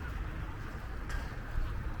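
Wind buffeting the microphone as a steady low rumble, with a brief sharp click about a second in.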